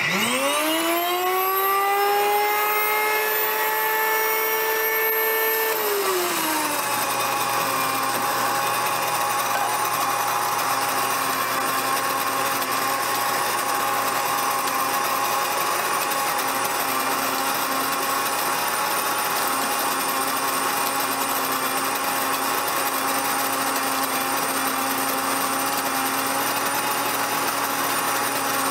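Whisper Mill electric grain mill switched on: its motor whines up to speed within about a second. About six seconds in, the pitch drops and settles lower as the wheat berries poured into the hopper load it, and it keeps running steadily, grinding them into flour.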